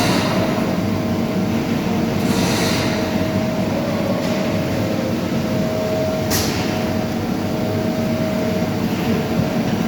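Line boring machine running steadily: a continuous mechanical drone with a constant whining tone over a low hum, and two brief hissing sweeps, one a couple of seconds in and one past the middle.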